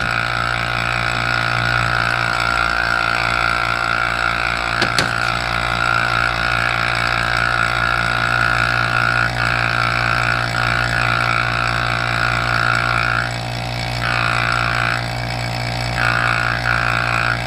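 Vacuum pump of a Sonnax valve body vacuum test machine running steadily with a constant hum and fast even pulsing, and a hiss of air drawn through the test probe that dips twice near the end. It is pulling vacuum on the manual valve circuit of a Chrysler A904 valve body to check for leakage past the valve. A short click about five seconds in.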